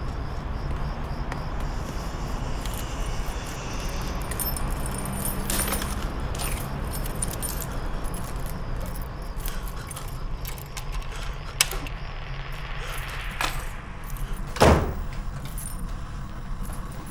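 Keys jangling and small clicks of a door being handled, with a sharp click and then a hard thump near the end as the door is worked, over a steady low rumble.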